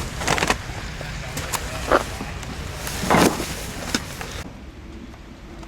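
Steady low rumble of a car driving, heard from inside the cabin, with a few short sharp scraping sounds. A background hiss drops away about four and a half seconds in.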